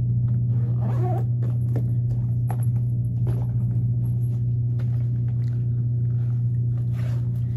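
A loud, steady low hum, joined by scattered light clicks and rustles.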